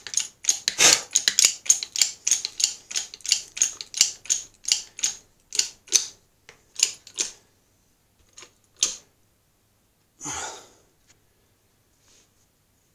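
10-ton bottle jack on a small press being pumped by its handle: rapid metallic clicking at about four clicks a second that stops about seven seconds in, as the jack is brought up to full pressure. A couple of single clicks follow, then a short scraping noise near the end.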